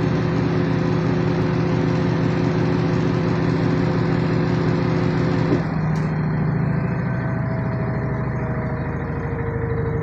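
LG washing machine running in the last two minutes of its cycle: a steady motor hum with several steady tones. About five and a half seconds in, the hiss in the upper range drops away and the tones shift slightly lower, as the drum's motion changes.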